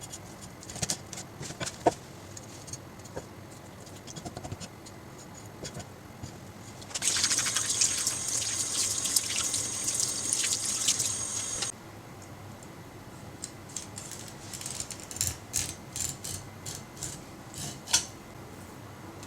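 Kitchen tap running for about five seconds in the middle, starting and stopping abruptly, with scattered small clicks and light knocks of handling before and after.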